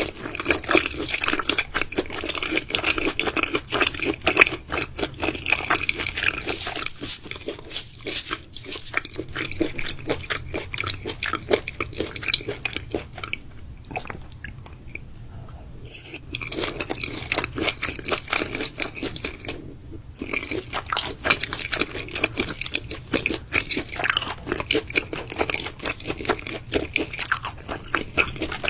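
Close-miked chewing and biting of raw meat: a dense run of wet crunching and smacking, with a quieter lull a little before halfway.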